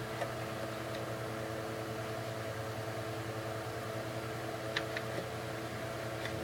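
Steady hum of a fan or household appliance running, with a couple of faint clicks about a second apart from the start and again near five seconds.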